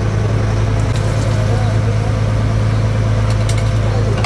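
Fishing boat's engine running steadily with a low hum, over a steady rushing noise.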